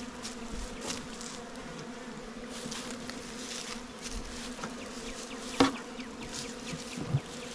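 A mass of honeybees from a freshly installed package buzzing in a steady hum. A single sharp knock sounds a little past halfway through.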